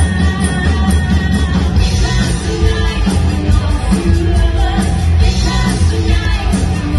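Live rock-pop band playing: drum kit and electric guitars under female vocals, with a heavy bass end.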